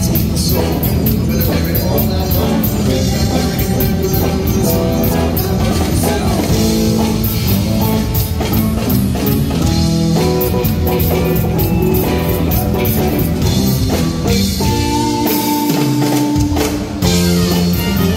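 Live rock band with electric guitar, drum kit, keyboards and a horn section playing a song in a concert hall. About three-quarters of the way through the bass and drums drop out briefly under held notes, then the full band comes back in.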